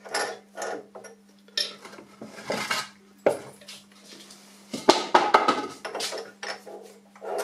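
Irregular metallic clinking and clattering of tools and parts being handled by hand at a drill press, with the loudest run of clinks about five seconds in, over a faint steady low hum.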